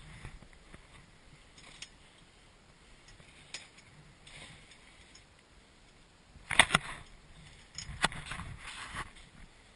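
Steel swing-set chains creaking and clinking as the swing moves, with a few scattered clicks and a burst of louder metallic clanks about two-thirds of the way through, then more clanking shortly after.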